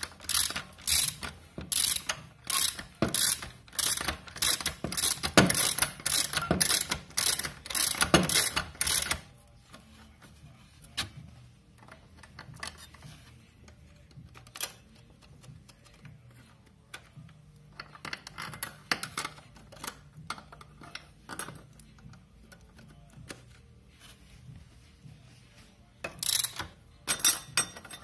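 Ratcheting metal clicks in a steady run as the threaded rod of a Lambretta clutch compressor is turned, stopping after about nine seconds. Quieter clinks of clutch plates being handled and fitted follow, and the loud clicking returns near the end.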